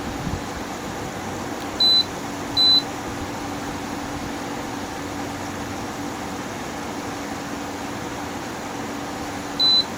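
GE Profile air conditioner running fans only, with the compressor not engaged: a steady fan rush with a low hum. Three short high beeps from the unit's control board, two close together about two seconds in and one near the end, acknowledging commands from the remote.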